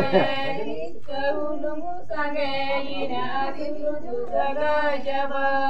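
A group of women singing a Santali Sohrai song in unison, phrases of long held notes with short breaks between them.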